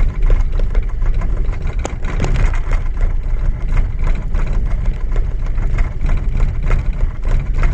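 Holden Astra's four-cylinder petrol engine idling with a misfire and a fast, uneven ticking, while fuel injector number 4 is switched off from a scan tool. The idle hardly changes when the injector is cut out, which the owner takes as a sign that the injector is playing up.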